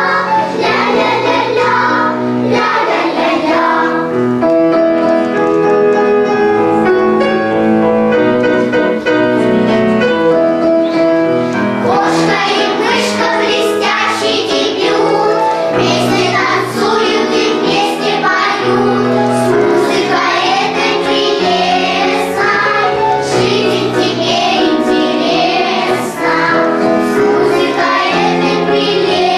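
A children's choir singing a song together.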